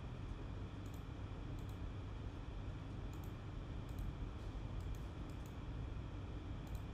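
Light clicks, scattered and irregular, over a steady low background hum.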